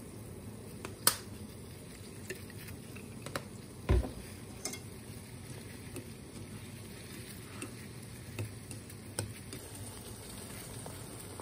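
Chopsticks stirring bean sprouts with seasonings in a glass bowl: soft mixing sounds with a few sharp clicks of the chopsticks against the glass and one low thump about four seconds in. Near the end, water at a rolling boil in a steel pot.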